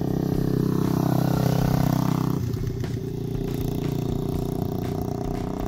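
Single-cylinder 125cc TaoTao DB17 pit bike engines running as the bikes ride along the street. About a second in, one engine's pitch drops and then climbs back up, and the sound changes suddenly near the middle.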